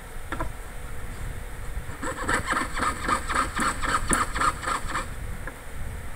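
Jeweller's saw cutting a brass letter blank: a quick, even run of rasping strokes, several a second, starting about two seconds in and stopping about three seconds later, over a steady low rumble.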